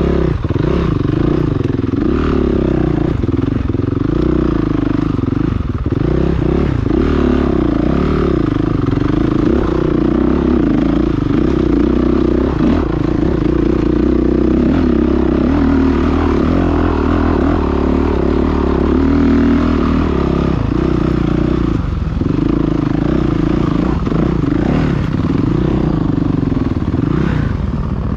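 Dirt bike engine running hard on a rough uphill climb, its revs rising and falling constantly as the throttle is worked. Near the end the revs drop to a slower, lower beat.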